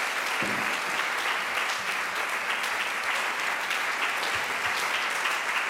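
Congregation applauding: many hands clapping at a steady level throughout.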